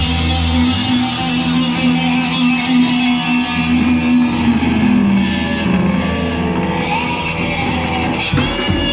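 Thrash metal band playing live: distorted electric guitars and bass ring out on long held notes, one line sliding down in pitch midway, with the drums crashing back in near the end.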